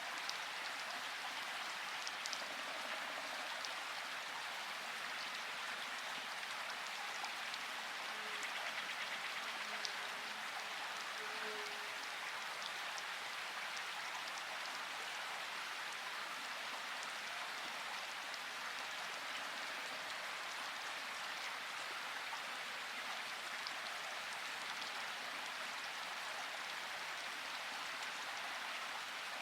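Steady rain falling, an even hiss of rainfall with many small drop ticks scattered through it.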